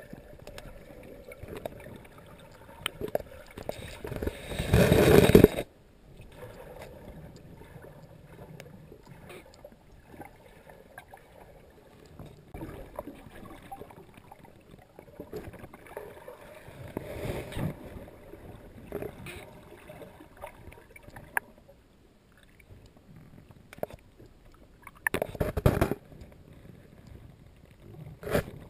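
Water moving around a GoPro Hero2's sealed underwater housing, heard muffled through the case: low gurgling and swishing with scattered small clicks. Louder rushes of noise come about four seconds in, cutting off sharply, again in the middle and near the end.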